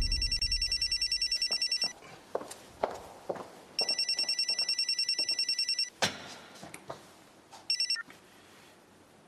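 Mobile phone ringing with a rapid electronic trill, in bursts of about two seconds with two-second gaps. The third ring breaks off after a moment, a little before eight seconds in, as the call is answered. Scattered small knocks fall between the rings.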